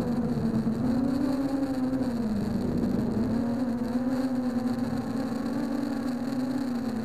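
ZMR 250 mini-H quadcopter's 1804 2400kv brushless motors and 6x4.5 propellers buzzing in flight, heard from its onboard camera. The pitch rises and falls as the throttle changes, over a hiss of rushing air.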